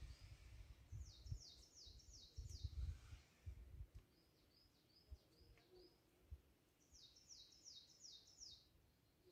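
Faint birdsong: a small songbird sings a quick run of about six high, falling notes twice, with softer short chirps in between. Low muffled bumps sound underneath in the first few seconds.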